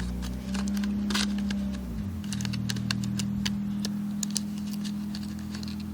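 A steady low engine-like hum that shifts in pitch about two seconds in, with scattered small clicks and rattles of a package of tablets being opened and handled.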